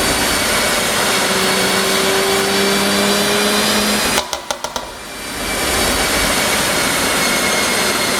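Mercedes-AMG GLC43's twin-turbo V6 exhaust held at high revs, then let off about four seconds in with a quick string of pops and crackles, the overrun pops of a tuned exhaust map, before it revs up again and holds.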